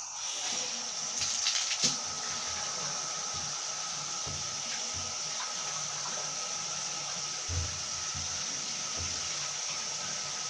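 Water running steadily from a tap into a bathtub, with a few light knocks.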